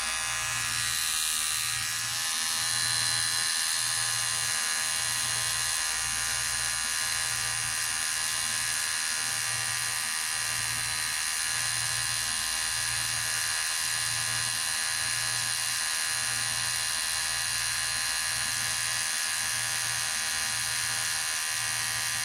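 Electric hair clipper running with a steady, high buzz, with a low throb that pulses about once a second.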